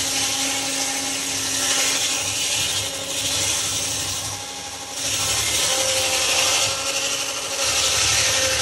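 Sawmill saw cutting through a teak log, the blade's hiss in the wood rising and falling over a steady motor hum. The cut eases off briefly about four and a half seconds in, then bites again.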